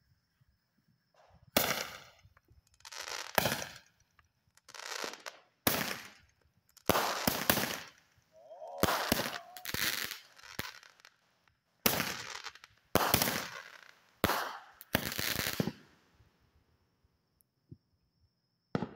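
Fireworks going off: a string of about fifteen loud bangs, irregularly spaced over roughly fourteen seconds, each dying away quickly.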